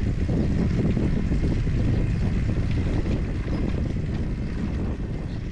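Wind buffeting the microphone with a low rumble, from riding a bicycle that tows a loaded trailer along a paved path.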